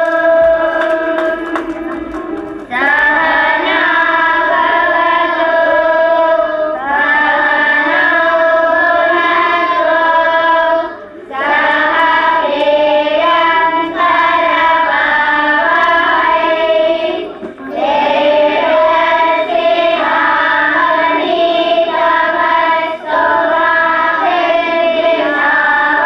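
A group of children singing a song together on stage, in long phrases with brief breaks between them.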